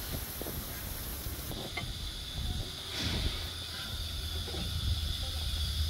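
Narrow-gauge steam locomotive standing with steam hissing steadily over a low rumble.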